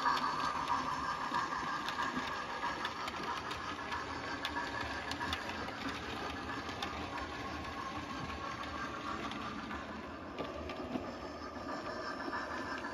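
00 gauge model train with Pullman coaches running along the track: a steady running sound with scattered light clicks from the wheels on the rails, fading a little in the middle and picking up again near the end.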